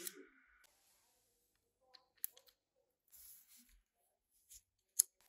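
Small hand tools clicking and scraping on a plastic toy-car chassis: tweezers and a precision screwdriver working at the battery-cover screw. A sharp click comes about two seconds in, a faint scratchy patch follows, and the loudest click comes near the end.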